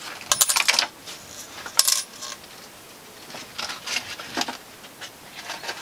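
A sheet of paper handled and bent, rustling and crackling in short bursts: about half a second in, again around two seconds, and more faintly near four seconds.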